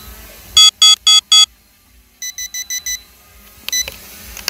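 Electronic warning beeps in quick groups, about four or five beeps a second. A loud group of four comes first, then a quieter group of five at a different pitch: the 8811 Pro drone's low-battery alarm sounding after it has landed itself.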